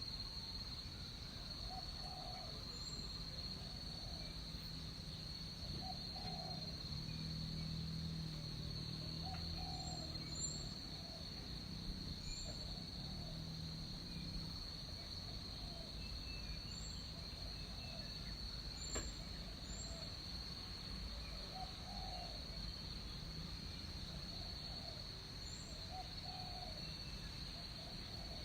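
Tropical rainforest ambience: a steady high-pitched insect drone, with a soft hooting call repeating about every two seconds.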